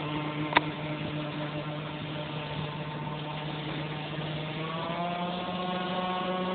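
RC gas power boat's RCMK two-stroke petrol engine running at speed on the water, a steady nasal buzz that rises slightly in pitch over the last couple of seconds. One sharp click about half a second in.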